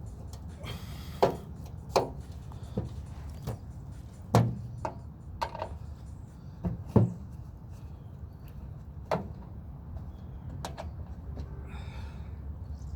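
Irregular sharp clicks and knocks of hand tools against a microwave's metal housing during disassembly, about a dozen strikes over a steady low hum.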